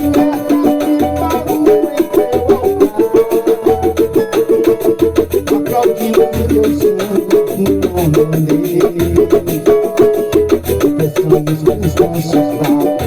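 Banjo picking an instrumental passage of a gospel song over a rhythmic accompaniment with a shaker and a low bass note about once a second.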